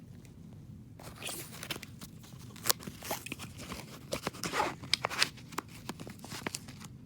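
Clicks and scrapes of a pocket multi-tool being handled and its folding blades and tools pulled open, with one sharp click about two and a half seconds in.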